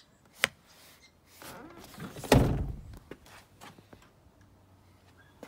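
Handling noises inside a small car's cabin: a sharp click, then a heavy, dull thunk a little over two seconds in, followed by a few light clicks.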